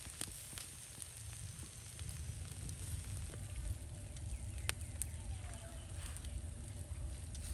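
Pork intestines sizzling over a charcoal fire, with scattered faint crackles and a low rumble of wind on the microphone. There are two sharper clicks a little past halfway.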